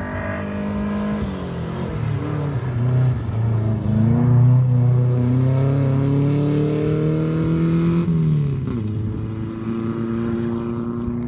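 Classic Saab 96 rally car's engine at full throttle. The revs climb steadily through a gear, then fall sharply as the driver lifts off, and the engine runs on at steady revs.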